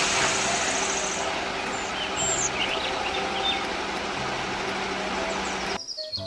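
A concrete mixer truck's engine running steadily, with a constant low hum under dense outdoor machine noise. It cuts off suddenly near the end, giving way to light background music.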